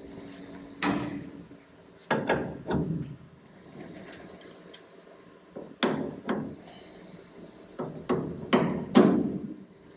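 Hammer strikes on metal steering-linkage parts, about ten blows in irregular groups, each ringing briefly.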